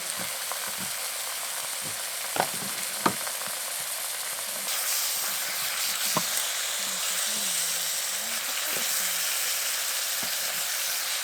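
Stir-fry ingredients sizzling in a hot pan, with a few sharp knocks of the utensil against the pan. The sizzle grows louder about halfway through.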